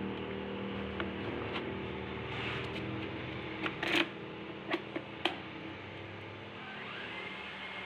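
Sharp clicks and knocks of plastic and metal as an electric fan's motor is handled and fitted back onto the fan's front housing; the loudest is a knock about four seconds in. A low hum fades out during the first half.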